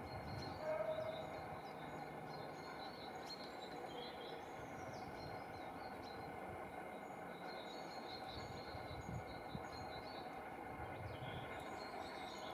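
Outdoor background ambience: a steady low rumble with small birds chirping faintly in repeated short high notes. One brief louder call stands out about a second in.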